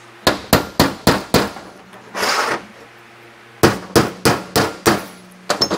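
Hammer striking a pin punch to knock the pin out of a 4L60E 1-2 accumulator housing, in two quick runs of sharp metal taps about four a second, five then six, with a brief scrape between them.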